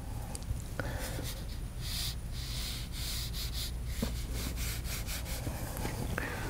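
Small paintbrush rubbing and scrubbing on watercolour paper in a few short strokes around the middle, over a steady low hum.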